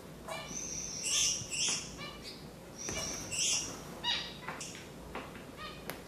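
Gouldian finches calling: short chirping notes, some with a high hissy edge, coming irregularly a couple of times a second.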